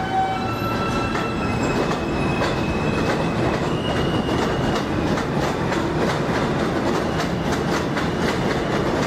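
New York City subway train running past on an elevated track. Its wheels clack over the rail joints in a quick, even rhythm that grows clearer from about the middle, over a steady rumble, with a faint thin whine in the first few seconds.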